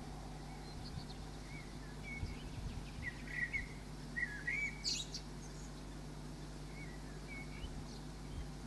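Small songbirds chirping: a few short notes clustered about two to five seconds in, one quick note sweeping sharply upward about five seconds in, and a couple more near the end, over a steady low background hum.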